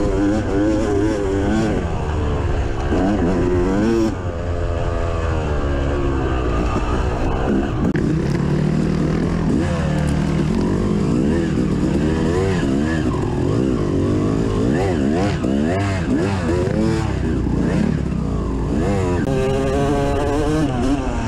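Yamaha YZ250 two-stroke dirt bike engine revving up and down over and over as it is ridden hard, heard from on the bike, with a brief dip about four seconds in.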